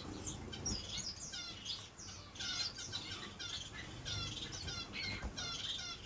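A room full of caged small finches chirping and calling, many short overlapping high chirps in quick succession.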